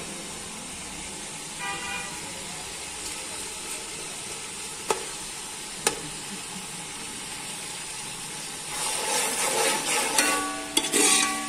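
Sliced onions sizzling in oil in an aluminium pot, frying slowly because the gas flame is low, with a couple of sharp clicks of a steel spoon against the pot. Near the end the sizzle grows louder and a held tone sounds over it.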